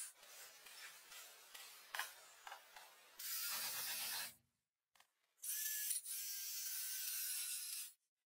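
Cordless drill driving screws into pallet wood: a quieter stretch with a few clicks, then two loud bursts of harsh noise, the second longer, each stopping abruptly.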